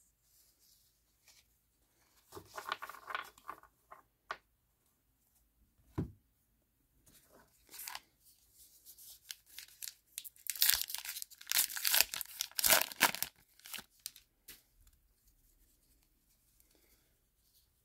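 A baseball card pack's wrapper being torn open and crinkled by hand: a short rustle about two seconds in, a single knock around six seconds, then a louder run of tearing and crinkling from about ten to thirteen seconds.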